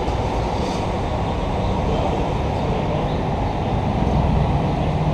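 Steady low rumble of running vehicle engines, with a faint low hum growing slightly stronger near the end.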